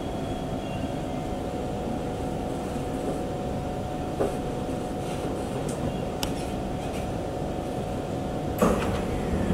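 Singapore MRT train heard from inside the carriage, running with a steady rumble and a thin motor whine as it draws into a station. There are light clicks about halfway through and a sharper knock near the end.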